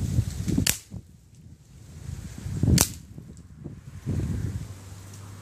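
Crosman 1077 CO2 pellet rifle firing two sharp shots, the first under a second in and the second about two seconds later.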